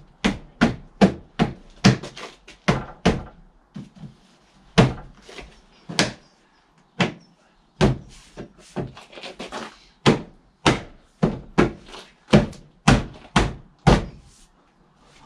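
A string of sharp knocks and thunks on the plastic front bumper of a VW T5 Transporter, roughly two a second and unevenly spaced, with a brief pause about four seconds in: a gloved hand is pushing and tapping parts of the bumper to shut them.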